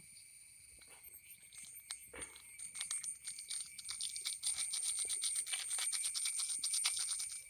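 Rapid light crinkling and tinkling clicks as the masala seasoning goes into the noodle pan. They start faint and grow dense after about three seconds.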